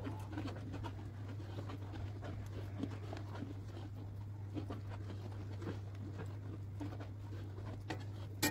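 Milk bubbling as it boils down in a large metal kadhai over a wood fire, with a long-handled spatula stirring and scraping the pan, under a steady low hum; one sharper scrape or knock near the end. This is the early reducing stage of making khoya, the milk still thin and steaming.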